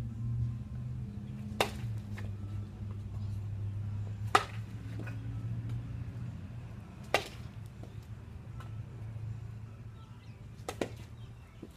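Four sharp cracks of a baseball bat hitting balls, roughly three seconds apart.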